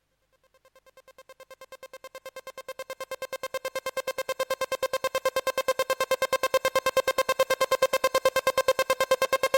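Electronic intro music: a single synthesizer note pulsing rapidly, about ten pulses a second, fading in from silence and then holding steady.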